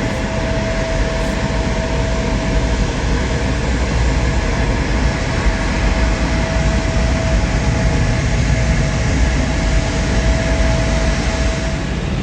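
Jet airliner engines running, a steady loud rumble with a single steady whine on top; the whine drops away shortly before the end.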